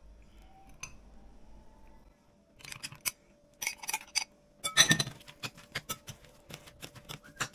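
Kitchen utensils clinking and clicking. After a quiet start the sharp clicks begin about two and a half seconds in, a loud cluster comes just before the halfway point, and quick, evenly spaced small clicks follow.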